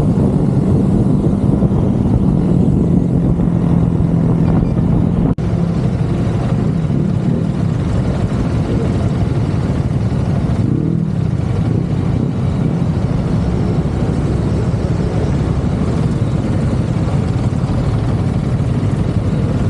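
CFMoto 650NK motorcycle's parallel-twin engine running steadily as the bike is ridden, with a brief break in the sound about five seconds in.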